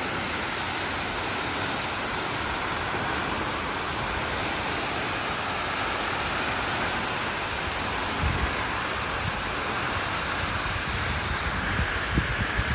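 Tall waterfall pouring onto rock ledges at its base: a steady, full rushing hiss of falling water. From about two-thirds of the way through, irregular low gusts of wind rumble on the microphone.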